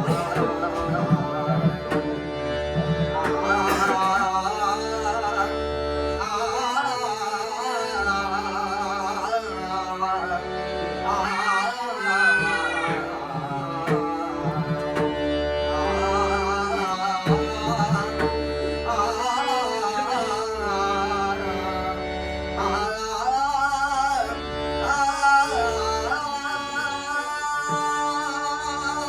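Devotional bhajan music: a voice singing wavering, ornamented lines over steady held keyboard-like tones, with hand-drum strokes keeping the beat.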